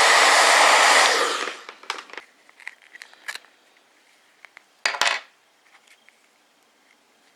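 Hot-air blower running to heat the phone's front glass and loosen its adhesive, shut off about a second and a half in. Then a few light clicks of handling and a brief loud burst of noise about five seconds in.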